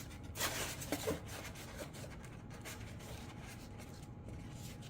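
Light rubbing and scraping of a glued rudder piece being pushed into place on a toy RC jet's tail: soft handling noise, a few brief scrapes in the first second, then fainter.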